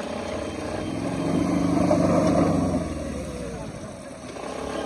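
Motor vehicle engine revving up and easing off while fording a shallow river. It grows loudest about two seconds in, then dies back.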